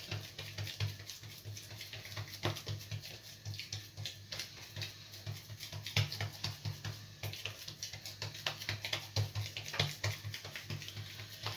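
Bare hands pressing and patting a soft, sticky, oiled yeast dough flat on a granite countertop: a run of irregular soft, wet smacks and clicks as the palms and fingers press down and peel off the dough.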